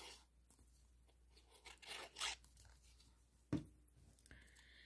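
Faint scratchy rustling of cardstock being handled and glued, with one short tap about three and a half seconds in.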